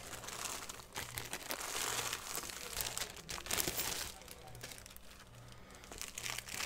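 Plastic packaging crinkling and rustling as it is handled by hand, in an irregular run with louder spells about two seconds in and again near the middle.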